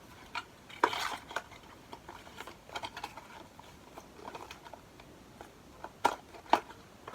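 Small items being handled during an unboxing: scattered light clicks and taps, the sharpest about a second in and two more near the end.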